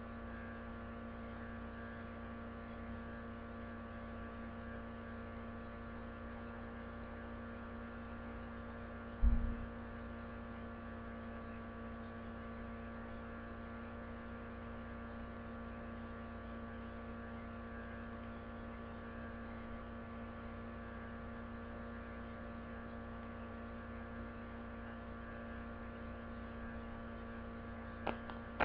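Steady electrical hum made of several held tones over a faint hiss, with one low thump about nine seconds in and a few light clicks near the end.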